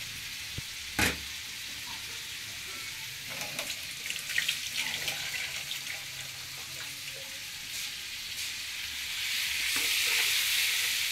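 Raw chicken pieces sizzling in hot oil and masala in a wok, with one sharp knock about a second in and some light clatter a few seconds later. Near the end the sizzle grows louder as the chicken is stirred with a wooden spoon.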